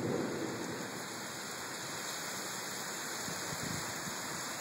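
Steady hiss of heavy rain falling during a severe thunderstorm.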